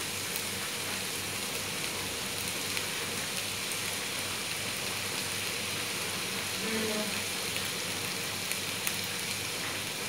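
Sliced bell peppers, carrots and onion sizzling steadily in oil in a frying pan while soy sauce is spooned in, with a few light clicks.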